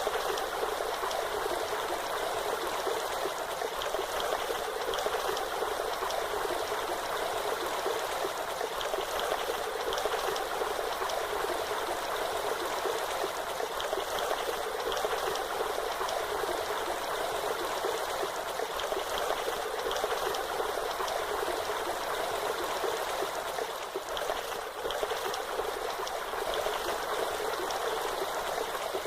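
Waterfall: steady rushing water, an even hiss without pauses or distinct splashes.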